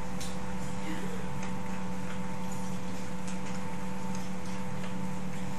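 Pekingese dogs eating from bowls: faint, irregular clicks and crunches of food and bowls over a steady hum.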